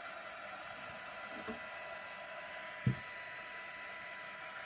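Handheld craft heat gun blowing steadily, a hiss of air with a high motor whine, drying fresh paint on a wooden rolling pin. One dull knock a little before the three-second mark.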